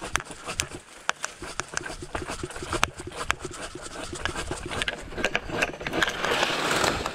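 Fiskars Power Lever pole saw's pruning blade sawing through a thick tree limb, with irregular clicks and scrapes from the strokes. About six seconds in comes a rush of rustling leaves as the cut limb breaks free and starts to come down.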